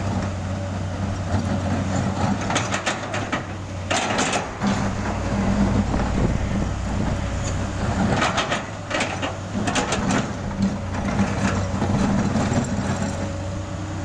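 Komatsu PC200 hydraulic excavator's diesel engine running steadily under load while its steel bucket scrapes up and breaks old asphalt paving. Chunks of asphalt clatter and grind in irregular bursts, loudest about three seconds in and again from about eight to ten seconds.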